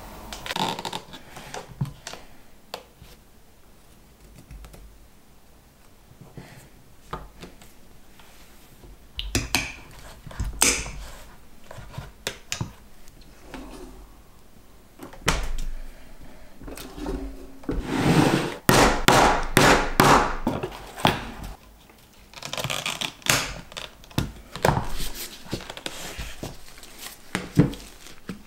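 Intermittent knocks, clunks and clicks of leatherwork at a table, among them a Craftool Pro hand press setting a snap fastener in a leather knife sheath. In the middle stretch there is a dense cluster of sharp strokes.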